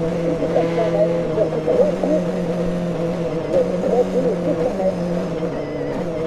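Citroën Xsara WRC's turbocharged 2.0-litre four-cylinder rally engine heard from inside the cockpit, running hard at high revs, then dropping in pitch about halfway through as the car brakes and shifts down from sixth to third gear.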